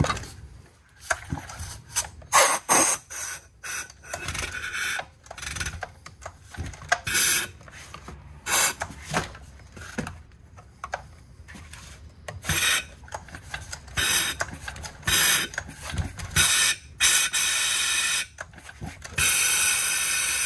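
Repeated short blasts of compressed air from a shop air-hose nozzle into the spark plug hole of a Stihl MS 250 chainsaw, with the last blasts lasting about a second each. This is the method for blowing unburned fuel out of a flooded cylinder.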